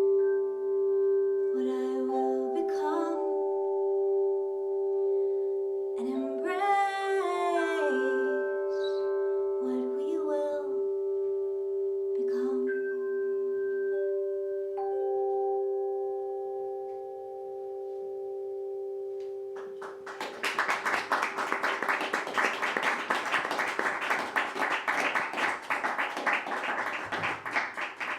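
Singing bowls ringing on with several overlapping steady tones, while a voice hums and sings wordless gliding notes over them; the tones fade. About twenty seconds in, a dense patter of clapping starts and runs on: applause at the close of the performance.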